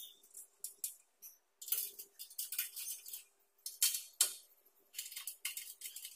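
Irregular light metallic clinks and clicks as stainless steel glass-clamp fittings are handled and their bolts turned with a small hex key.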